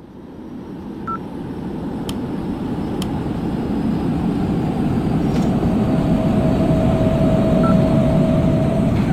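Rumbling vehicle noise that grows steadily louder, with a steady whine coming in about halfway through and two faint short beeps.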